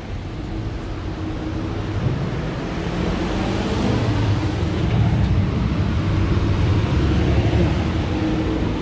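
Road traffic noise: a motor vehicle running close by, growing louder from about two seconds in and staying loud.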